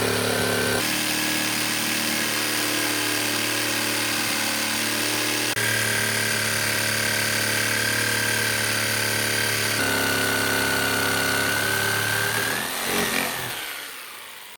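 Electric woodworking power tool running steadily with a constant motor whine; the sound changes abruptly a few times, then winds down and fades near the end.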